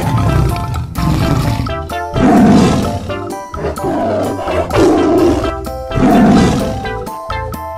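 A tiger's roar, dubbed in as a sound effect, three times about a second and a half apart, over background music.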